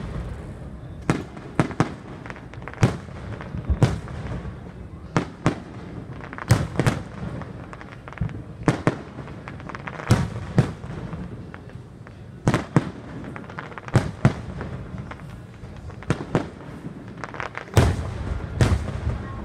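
Aerial firework shells bursting in an irregular run of sharp bangs, about one or two a second, with a close cluster of the loudest bangs near the end.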